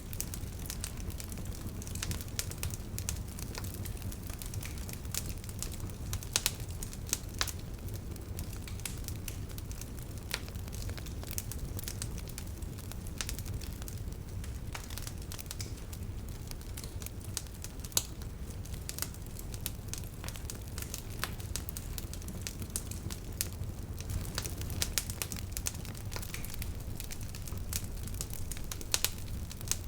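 Wood bonfire crackling, with frequent sharp snaps and pops over a steady low rumble of the burning fire.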